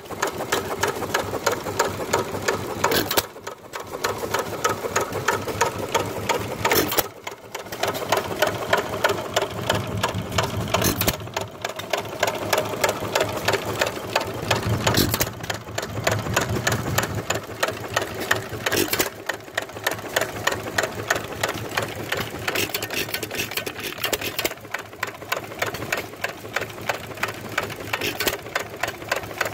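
A 1-3/4 HP Dazzle Patch single-cylinder stationary gas engine running: a fast, even clacking from its moving parts. About every four seconds there is a louder beat followed by a brief lull.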